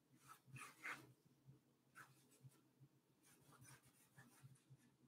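Faint scratchy strokes of a paintbrush working oil paint onto a canvas, a few short strokes in the first second, one more about two seconds in, and a quick run of strokes near the end.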